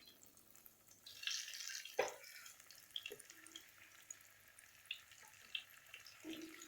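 Breaded egg chops going into hot oil in a kadai: a brief burst of sizzling about a second in and a single knock, then faint scattered crackling of the oil.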